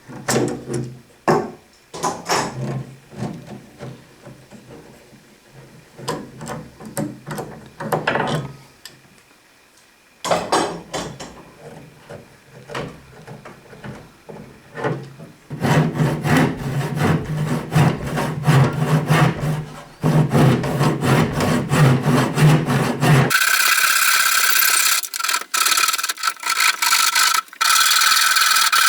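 Wood being worked by hand with repeated rasping, rubbing strokes that come in bursts and grow denser and louder after about fifteen seconds. From about twenty-three seconds a power tool runs steadily with a constant whine.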